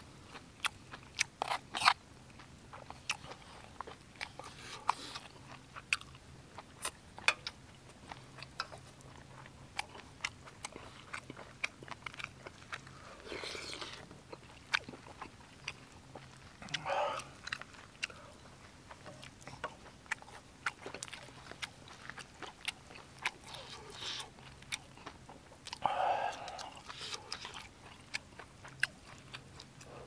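Close-miked chewing and biting of braised kimchi and pork belly: wet mouth clicks throughout, with a few longer, louder mouth sounds, over a faint steady low hum.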